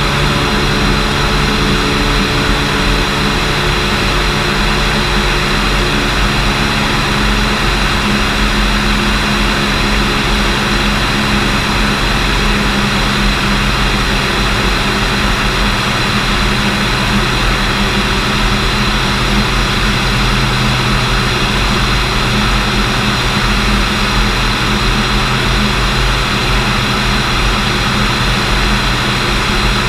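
Engine and propeller of a Cessna 210L Centurion II, a six-cylinder Continental IO-520, running steadily at an even pitch with a loud rush of propeller and air noise.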